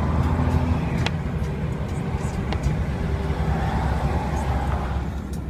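Steady low rumble of road and engine noise heard inside a Volvo's cabin while it drives at motorway speed.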